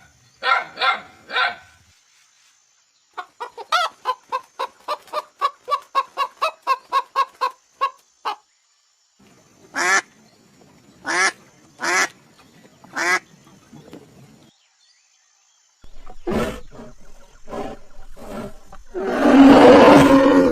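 A string of animal calls. A few short calls come at the start, then a fast run of about a dozen calls at roughly two a second. Four separate calls follow about a second apart, then scattered calls and a loud, harsh cry near the end.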